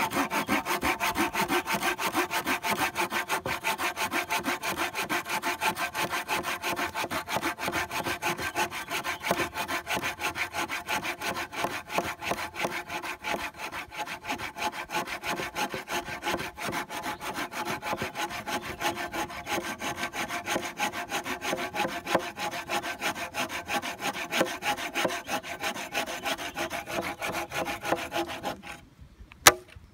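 Folding hand saw cutting back and forth through a dry, dead branch in a steady run of rasping strokes. The strokes stop near the end, followed by a sharp knock.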